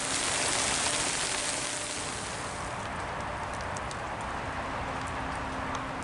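Hail and rain coming down in a dense, even patter, heaviest for the first couple of seconds and then easing, with scattered sharper ticks of individual hailstones.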